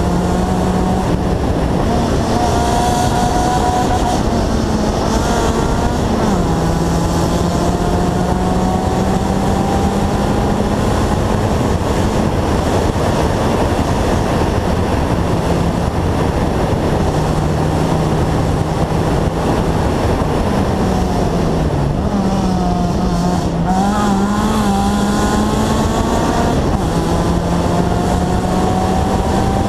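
Rally car engine at high revs, pulling hard along a tarmac stage. The engine note climbs slowly and falls back several times as it goes through the gears, dipping and wavering about two-thirds of the way in. Underneath it runs a loud, steady rush of noise.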